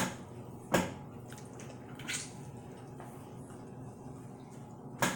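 Wet smacking clicks of someone eating saucy shrimp, a few separate sharp smacks, the loudest about three-quarters of a second in, another just after two seconds and one near the end.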